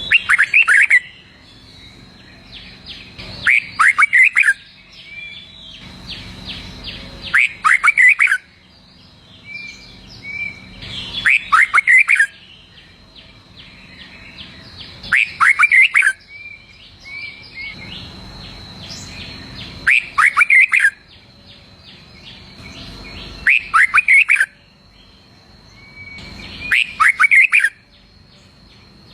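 Red-whiskered bulbul singing: a loud phrase of quick whistled notes, about a second long, repeated roughly every four seconds, with softer chirps in between.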